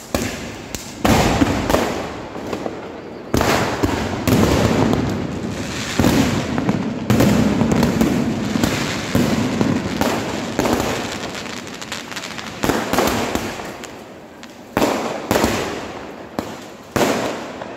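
Fireworks and firecrackers going off one after another: sharp bangs every second or two, each fading away, over continuous crackling.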